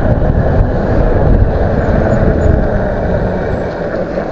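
Wind buffeting the microphone on a moving e-bike: a loud, steady rush.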